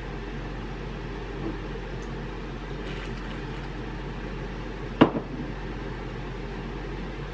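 Glass beer bottle set down on a desk about five seconds in: one sharp knock followed by a smaller second knock, over a steady low room hum.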